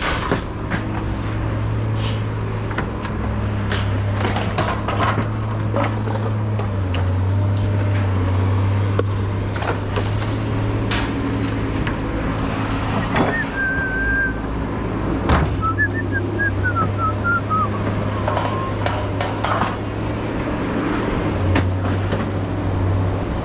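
A vehicle engine running steadily, under repeated clanks and knocks of scrap metal being handled. A few short high chirps come about halfway through.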